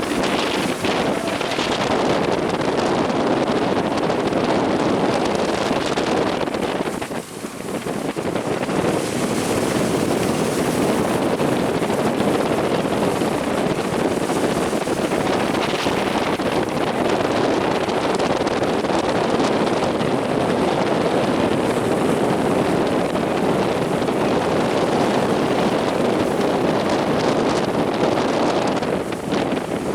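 Strong wind buffeting the microphone over the steady roar of heavy surf. It eases briefly about seven seconds in and again near the end.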